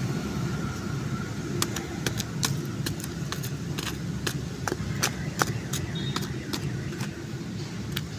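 Gravelly soil and small stones being pushed and patted down by hand and with a wooden board, giving a run of sharp, irregular clicks and scrapes. A steady low rumble runs underneath.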